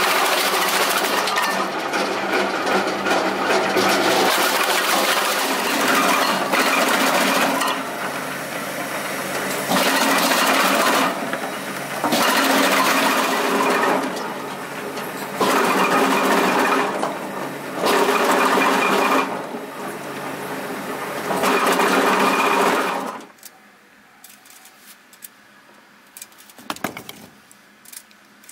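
Red Dragon RP200 wood chunker, six knives per shaft, running and chopping wood into chunks, with a steady machine sound that swells into louder stretches every two to three seconds as wood is cut. The machine sound cuts off about 23 seconds in.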